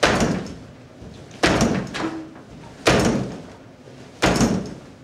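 Shin kicks striking a tall padded kicking post: four heavy thuds about one and a half seconds apart, each dying away over about half a second.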